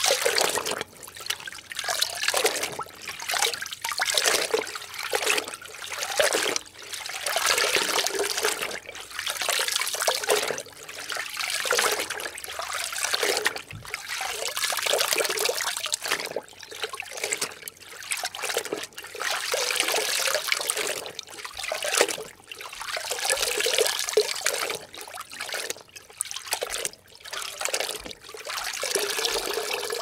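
Something being soaked in water: repeated swells of sloshing, trickling water, roughly one every one to two seconds, with short pauses between them.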